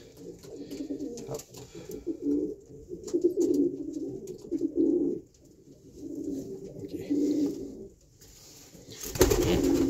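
Racing pigeons cooing in two long stretches of low, rolling coos, with scattered small handling clicks. Near the end comes a short, loud rustling noise.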